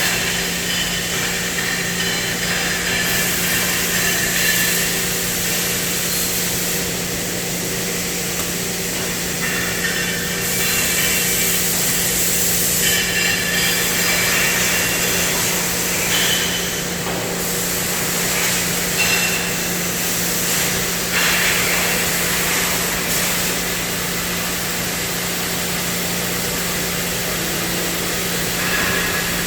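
CNC cutting machine at work: a steady torch-like hiss that swells and dips every few seconds over a constant machine hum.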